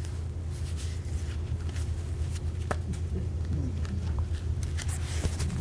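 Room tone: a steady low hum with a few faint clicks and rustles.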